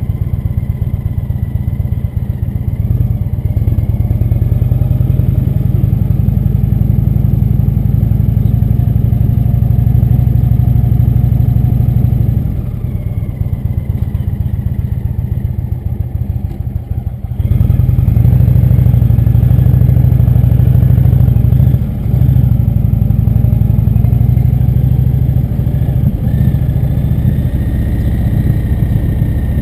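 Indian motorcycle's V-twin engine running on a slow ride. It quietens about twelve seconds in as the bike eases off toward a stop sign, then comes back louder some five seconds later as it pulls away, with a brief dip a few seconds after that.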